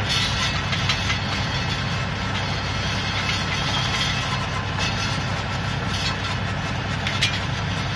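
LS XR3140 compact tractor's diesel engine running steadily under PTO load, driving a County Line post hole auger as it bores into the soil. A single sharp click a little after seven seconds.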